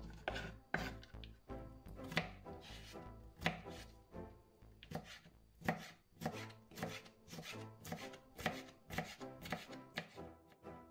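Knife dicing radishes on a bamboo cutting board: sharp, irregular taps of the blade striking the board, about two to three a second.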